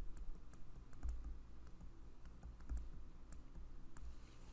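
Faint, irregular clicks and taps of a stylus on a tablet screen as a word is handwritten, over a low steady hum.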